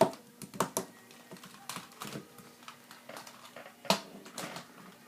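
Plastic speedcubes being shuffled around on a surface by hand, knocking and clattering against each other in irregular clicks, with a louder knock at the start and another about four seconds in.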